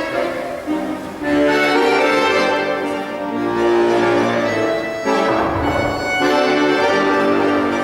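Accordion music accompanying barre exercises: a melody over held chords, changing chord every second or so.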